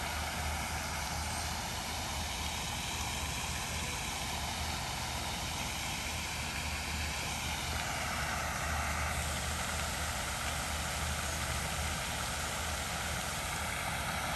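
Steady rushing hiss of water spraying and falling from a floating pond fountain, over a low steady rumble.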